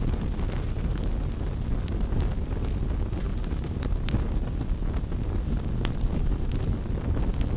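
Firewood burning: the flames make a steady low rumble, with many scattered sharp crackles and pops of the burning wood.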